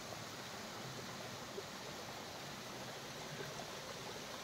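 Steady rush of water from a mountain waterfall falling down a rock face.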